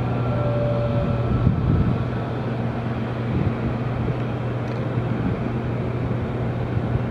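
Airbus A319 jet engines running as the airliner rolls out along the runway just after touchdown: a steady rumble with a faint engine whine that fades about a second in.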